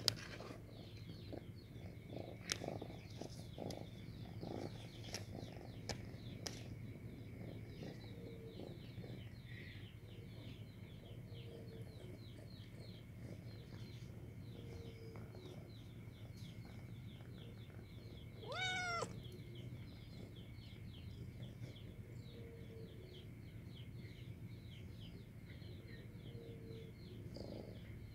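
A domestic cat gives one meow, rising then falling, a little past the middle. Earlier there are scattered clicks and scrapes as the cat paws at the plastic basket it is in, over a steady low hum and faint, rapid high chirping in the background.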